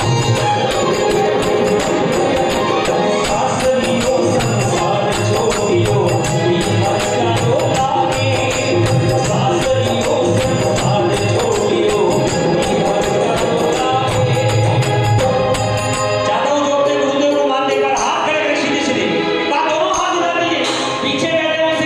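Live Marwari devotional bhajan music: singing over instruments with a steady percussion beat and tambourine-like jingle. About three-quarters of the way through the low beat drops out, leaving the singing and sustained instrument tones.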